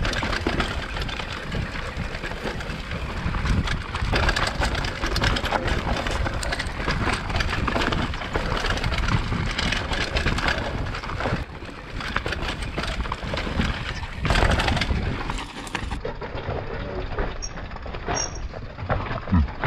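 Mountain bike riding fast down a rough dirt forest trail, heard from an action camera mounted on the rider or bike: tyres rumbling over dirt, roots and stones, with constant rattling and knocking from the bike and a louder jolt about fourteen seconds in.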